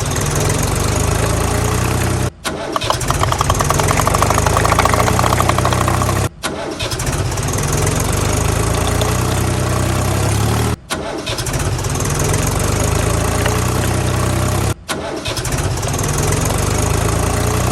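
Tractor engine running steadily, broken by four brief gaps.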